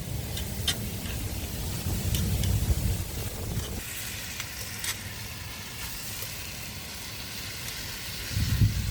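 Food sizzling in a hot pan: a steady hiss that swells about four seconds in, with a few light ticks and pops. Low wind rumble on the microphone underlies the first few seconds.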